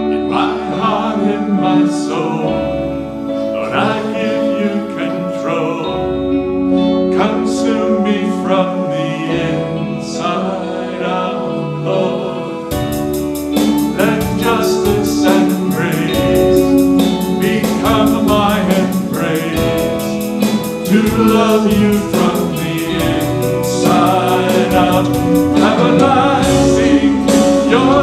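Worship song from a church praise team: voices singing over instrumental accompaniment with a bass line. About halfway through, the accompaniment fills out and a fast, steady high ticking joins in.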